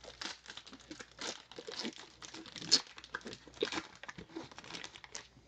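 Foil wrapper of a Panini Player of the Day trading-card pack being torn open and crinkled by hand, with irregular crackles throughout; the loudest comes a little under three seconds in.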